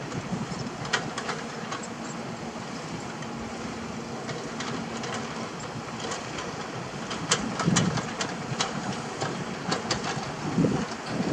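Komatsu crawler excavator's diesel engine running while its bucket works loose rubble, with irregular sharp clanks and knocks of rock and steel, several close together in the second half and a heavier rumble near the end.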